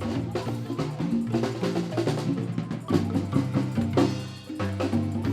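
Marimba band music: pitched wooden bars struck in a steady rhythm over low bass notes, with drums.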